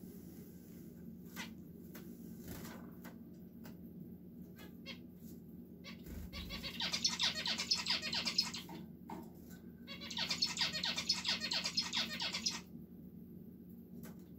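Caged zebra finches and society finches calling: scattered short calls at first, then two long bursts of rapid chattering song of about three seconds each, the second starting about ten seconds in.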